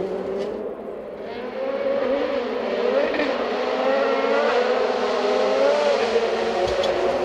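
Rally car engine running hard on the stage, its note rising and falling with throttle and gear changes. It dips about a second in, then grows louder and holds.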